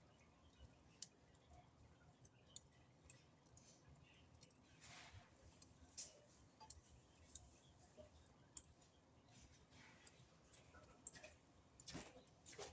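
Fireplace fire crackling faintly with scattered, irregular pops, including a couple of longer, louder crackles about five seconds in and near the end.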